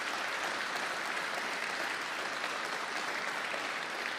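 Audience applauding, a dense, even clapping at a steady level.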